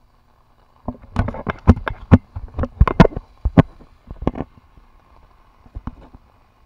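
Irregular sharp taps and knocks of raindrops striking the camera and its microphone in heavy rain, thickest between about one and four and a half seconds in, with a few weaker taps near the end, over a faint rain hiss.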